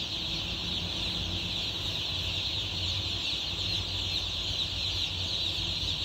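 A large flock of day-old chicks peeping all at once: a dense, steady, high-pitched chorus of cheeps.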